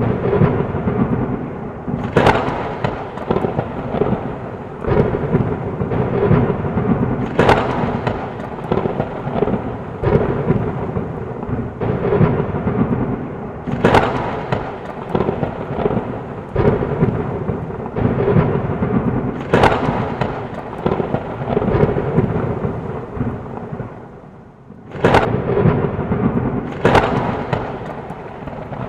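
Thunderstorm with heavy rain: thunder rumbling continuously, broken by sharp thunderclaps about every five or six seconds. The rumble fades briefly shortly before two claps in quick succession near the end.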